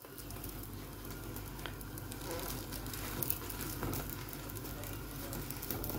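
A frozen paratha sizzling steadily as it fries in a frying pan.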